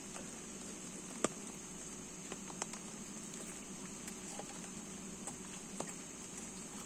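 Scattered light taps and clicks, with one sharper knock about a second in, over a steady high hiss and a faint low hum.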